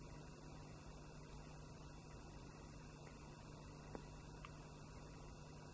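Near silence: room tone with a faint steady low hum, and a tiny click about four seconds in.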